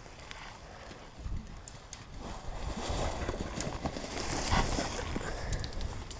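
Footsteps on dry ground, starting about a second in, with clothing and gear rustling as the person moves.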